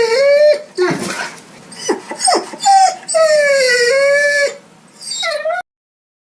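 A hungry dog whining and whimpering to beg: two long, wavering whines with short high yips between them, and a last short whine. The sound cuts off suddenly about five and a half seconds in.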